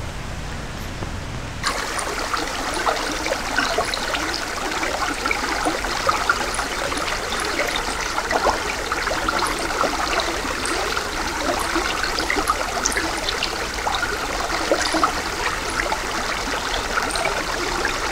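Small woodland brook running over rocks close to the microphone: a steady rush of water full of small splashes and gurgles, starting about two seconds in after a brief low rumble.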